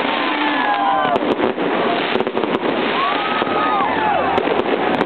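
Fireworks going off at close range: a dense, continuous crackle with many sharp bangs throughout.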